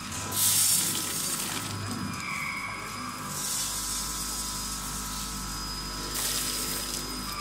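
Wax-pellet weighing and filling machine running with a steady hum, as three rushing pours of paraffin wax granules drop from the weigh hopper through the discharge chute into a bag, the first about half a second in and the loudest.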